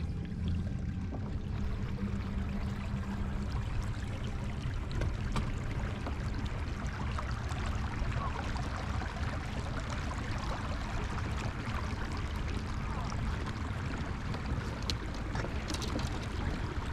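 Steady rushing water noise, with a faint low hum in the first few seconds.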